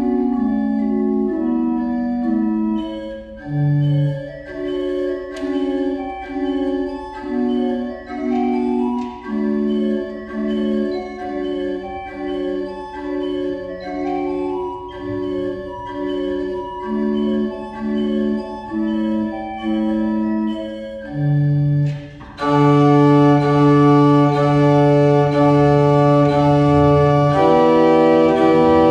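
Historic 19th-century pipe organ playing: short detached notes and chords in a steady rhythm. After a brief pause about two-thirds through, a loud sustained chord with a fuller, brighter sound, moving to another chord near the end.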